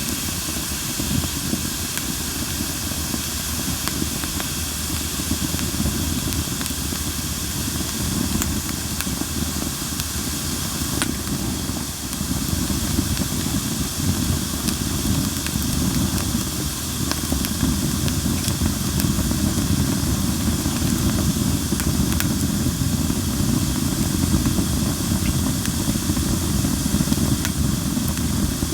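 Campfire of linden wood hissing steadily, with scattered crackles and pops.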